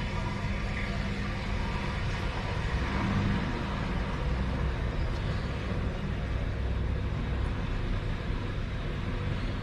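Steady low background rumble, with no distinct knocks or clicks.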